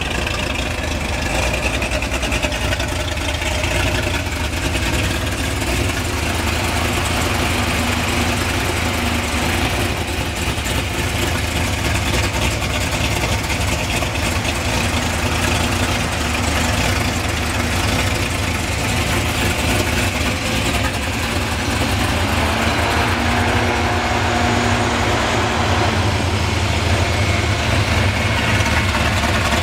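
ERL 427-cubic-inch stroker LS3 V8 with an aftermarket cam, in a C6 Corvette, idling steadily.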